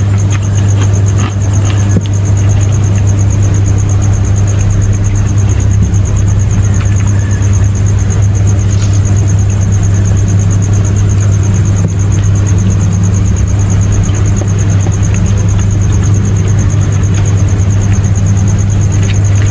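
Loud, steady low hum, like an engine or motor running, with a steady high-pitched trill over it.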